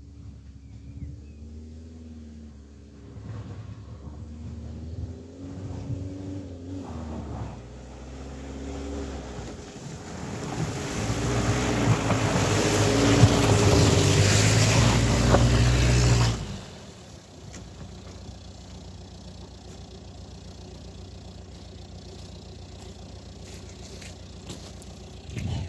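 Car engine revving up and down as the car ploughs through deep mud with its wheels struggling for grip. A loud hiss of spinning tyres and churned mud builds to the loudest part and stops abruptly about two-thirds through, leaving a low steady hum.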